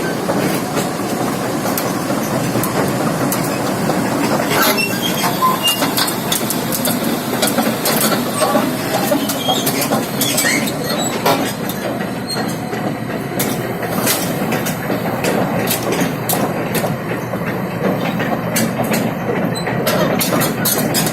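Hitachi 330H hydraulic excavator at work: its engine runs steadily under a clatter of metal clanks and knocks, which come more often in the second half.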